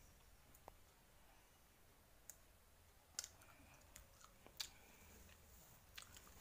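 Faint, scattered mouth clicks and lip smacks from chewing jaggery-mixed beaten rice (bellam atukulu), about six sharp clicks a second or so apart over near silence.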